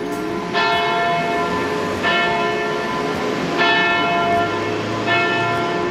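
Frederik's Church bell striking the hour at eight o'clock: four slow, evenly spaced strokes about a second and a half apart, each ringing on with its overtones.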